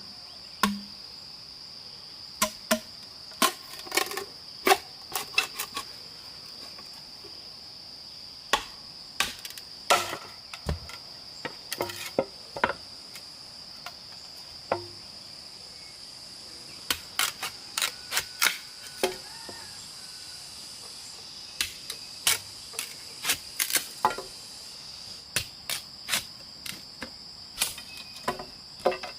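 Steady high-pitched insect chorus, with irregular sharp knocks, some single and some in quick clusters, like something being struck or chopped.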